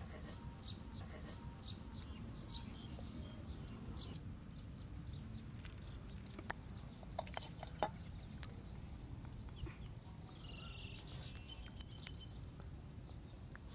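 Faint outdoor background with a few short bird chirps and scattered small clicks of eating: a knife against a clay pan, fingers pulling at fried egg, chewing.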